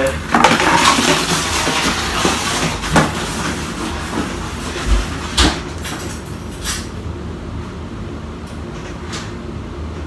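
Rustling and clattering of someone moving about and handling things, loudest in the first two seconds, with a few sharp knocks, the strongest about five and a half seconds in.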